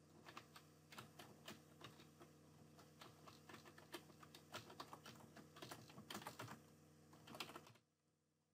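Faint typing on a computer keyboard: a quick, uneven run of key clicks that stops a little before the end.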